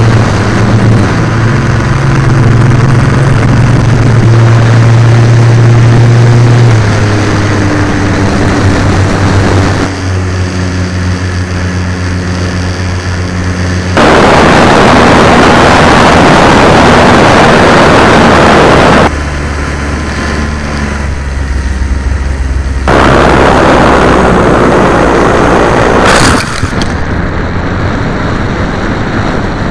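Model plane's motor and propeller buzzing steadily, heard through an onboard camera's microphone, with the pitch shifting a few times as the throttle changes. Twice, loud wind rush covers the buzz for several seconds, once about halfway through and again near the end.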